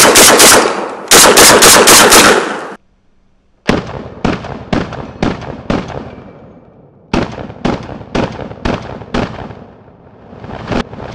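Rapid semi-automatic fire from a Panzer BP-12 Gen2 12-gauge bullpup shotgun shooting 00 buckshot. About eight very loud shots come in quick succession in the first three seconds. After a short pause, quieter shots follow at about two a second in two runs, with a brief break between them.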